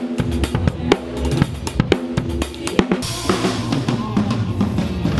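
Acoustic drum kit played fast: bass drum and snare strikes in quick succession, with cymbals crashing and washing from about three seconds in.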